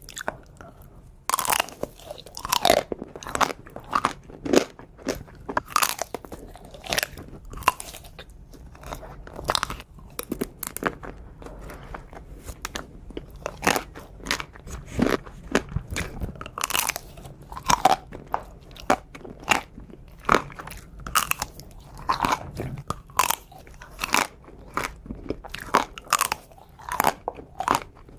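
A person biting and chewing chocolate desserts and ice cream, with many sharp, irregular crunches, some a second or less apart.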